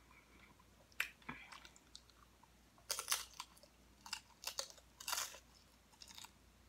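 Chewing and crunching nacho tortilla chips, with a string of short, crisp crunches at irregular intervals.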